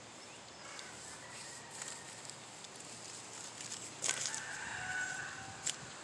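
A rooster crowing: one long call of over a second starting about four seconds in, after a fainter call near the start.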